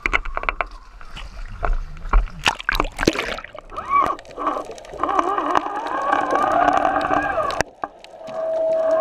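GoPro camera in its waterproof housing handled at a boat's side and dropped into the sea: knocks and a splash, then muffled underwater noise with a steady hum and tones that rise and fall.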